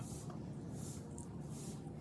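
Tortoises chewing cucumber: soft, wet crunching bites about twice a second, over a low steady hum.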